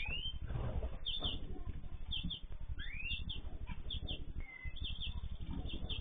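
Aviary cage birds chirping: short paired chirps about once a second, with a rising whistle at the start and another about three seconds in, over a steady low rumble.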